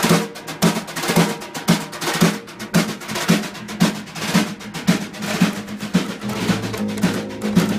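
Drums playing a steady beat for the opening of a punk band's acoustic song: accented low hits about twice a second with fast snare strokes between. About six seconds in, a held low note from another instrument joins the drums.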